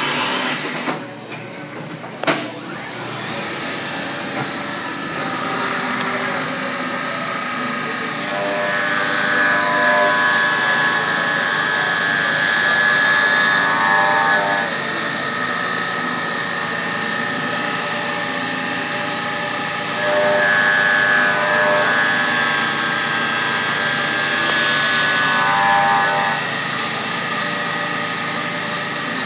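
CNC milling machine cutting an aluminium block with an end mill under flood coolant: a steady spray hiss and machine noise, with a sharp clunk about two seconds in. A high, multi-toned whine from the cut comes in twice, each time for about five or six seconds.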